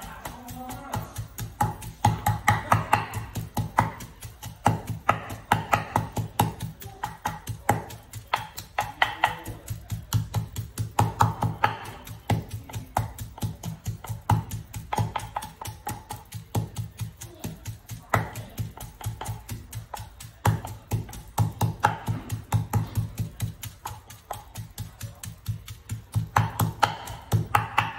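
Wooden pestle pounding a moist spice paste in a wooden mortar: dull knocks in a quick, steady rhythm of several strokes a second, with brief pauses now and then.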